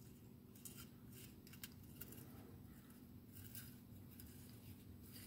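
Near silence, with a few faint, irregular small metal clicks as the rotor nut is threaded by hand onto a Penn Spinfisher 704Z spinning reel.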